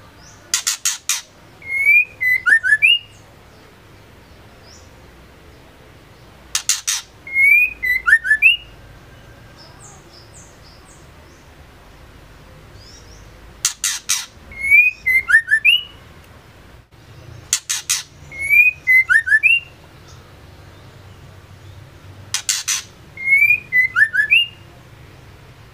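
Female white-rumped shama calling five times. Each call is a quick rattle of harsh clicks followed by a few short whistled notes that slur up and down, and the calls repeat every four to seven seconds.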